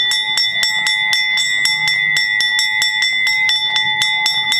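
Brass bell on a horse-drawn fire carriage ringing rapidly and evenly, about five clangs a second, its ring carrying on between strokes.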